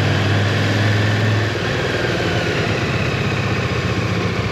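KTM 1290 Super Duke GT's V-twin engine running at low speed with an even, pulsing beat; its deeper, louder note eases off a little about a second and a half in.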